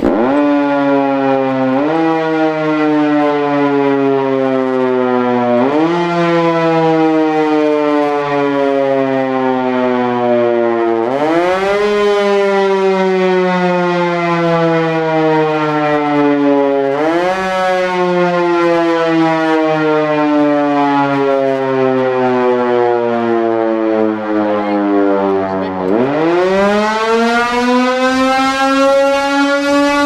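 Large mechanical air-raid/tornado siren with its horn removed, running off a battery bank: a loud wailing tone that jumps up in pitch each time power is applied and slowly sags in between, about five times. It then winds up steadily through the last few seconds.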